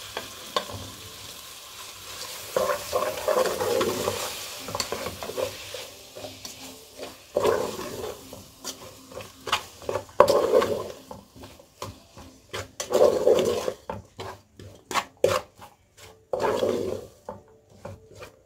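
Wooden spoon stirring cabbage and tomato in an aluminium pot, scraping strokes every couple of seconds. A light sizzle of the frying vegetables fades out within the first few seconds. In the second half, many sharp clicks come from the spoon knocking against the pot.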